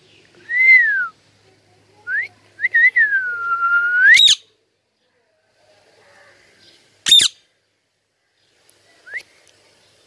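Indian ringneck parakeet whistling clear sliding notes: a rise-and-fall whistle near the start, then a long whistle that dips, holds and sweeps sharply up into a harsh screech about four seconds in. A short sharp screech follows about seven seconds in, and a brief rising note near the end.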